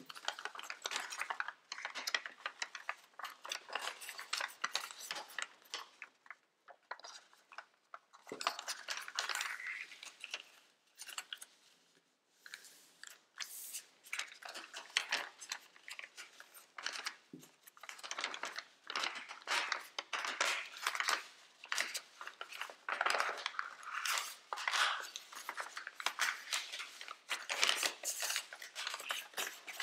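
Origami paper rustling and crinkling as hands fold and crease it, in quick irregular crackles, with two brief quieter pauses.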